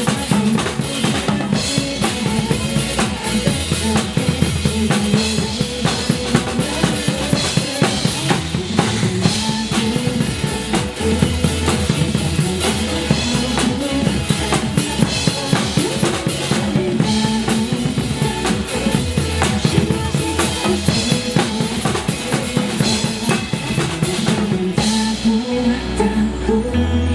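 Acoustic drum kit played at a driving pace, with kick drum, snare and rimshots, over the recorded backing music of a pop song. The cymbals drop out near the end.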